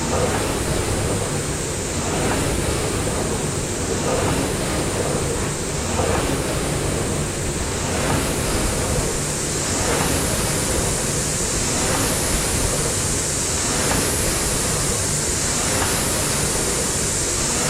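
Air-resistance fan flywheel of a Concept2-style indoor rowing machine whooshing steadily, surging with each stroke at about one stroke every two seconds.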